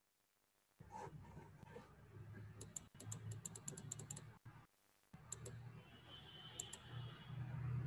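Faint clicking at a computer: a quick run of about ten light clicks a few seconds in, then a few single clicks, over a low steady hum.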